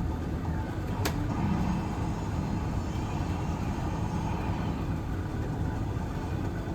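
Steady low rumble of a vehicle under way, with a single sharp click about a second in.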